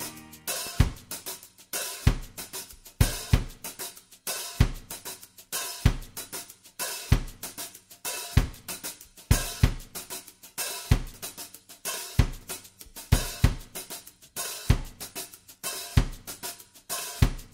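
A drum kit playing alone: a steady, sparse beat of kick, snare and hi-hat or cymbal hits, a drums-only break in the background music.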